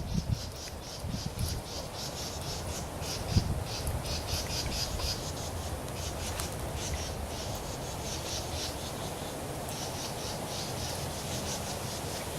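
An insect, likely a cricket, chirping in rapid trains of short high notes, about five a second, with two short breaks. A steady low rumble of outdoor background noise sits under it.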